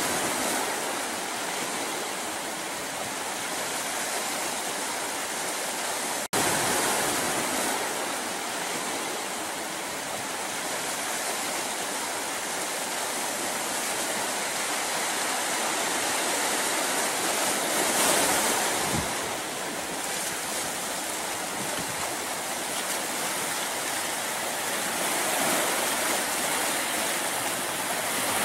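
Ocean surf breaking and washing up a beach, a continuous rushing wash that swells briefly about eighteen seconds in. It cuts out for an instant about six seconds in.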